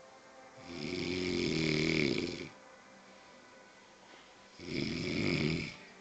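Snoring: two snores, the first about a second in and lasting nearly two seconds, the second shorter, near the end.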